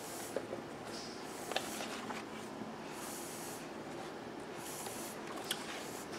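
Faint paper rustling as a board-game rulebook is leafed through, soft page swishes every second or so with a few light clicks.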